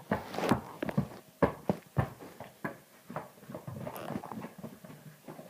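A small dog's paws thumping and pattering on carpeted stairs: a string of irregular soft knocks, the loudest about half a second, a second and a half and two seconds in.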